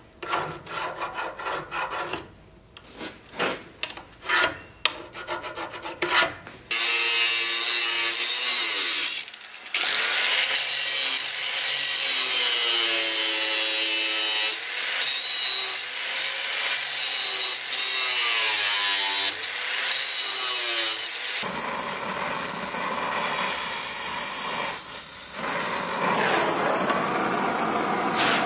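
About seven seconds of short hand scraping strokes on sheet steel, then an angle grinder cutting the steel sheet for about fifteen seconds, its motor pitch dipping and recovering under load. The grinder stops about three-quarters of the way through and gives way to a steady rushing noise as the steel is heated to a glow.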